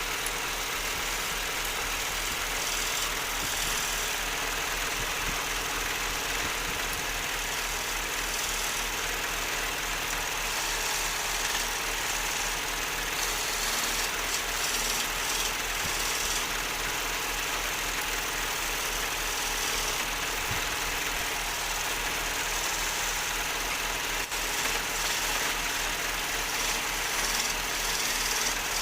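Wood lathe running steadily, a low electric motor hum under a hiss that swells at times.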